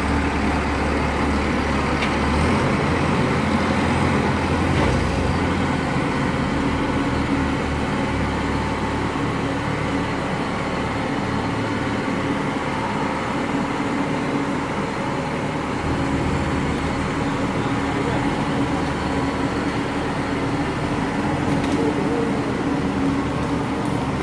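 Diesel engine of a long-boom excavator running steadily, its low note shifting a few times as the load changes.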